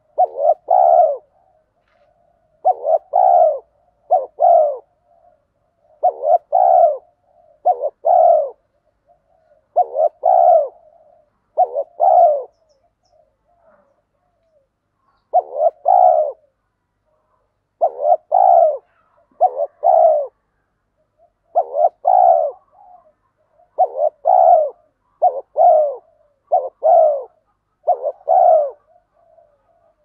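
Spotted dove cooing: short arched coos, mostly in quick pairs, repeated every second or two with a short break about halfway. This is the rapid cooing ('thúc gù') that keepers use to rouse other doves.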